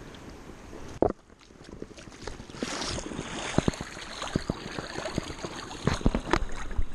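Flowing river water with wind on the microphone. A sharp knock comes about a second in, and from the middle on there is louder splashing with a run of short knocks and clicks.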